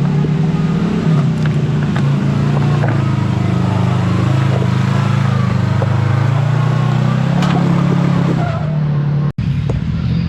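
Side-by-side UTV engine running steadily as the machine drives along a trail, its drone drifting slowly in pitch, with a few sharp clicks and knocks over it. The sound cuts out for an instant about nine seconds in.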